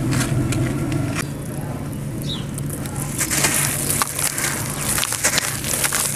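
A dry sand-cement chunk crumbled by hand, its grains crackling and pouring into a tub of wet paste from about three seconds in. A steady low hum runs underneath.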